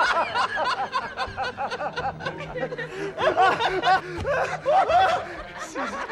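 A man laughing loudly and wildly in repeated bouts of high-pitched cackling, with short breaks between bouts.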